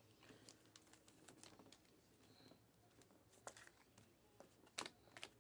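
Faint clicks and light rustling of a stack of Panini Select basketball trading cards being handled and flipped through, with a few sharper clicks in the second half.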